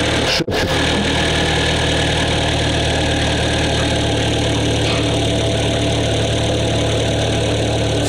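Rebuilt Kia G4KD 2.0-litre four-cylinder petrol engine idling steadily after resleeving of the block and new pistons. A very brief gap about half a second in breaks the sound.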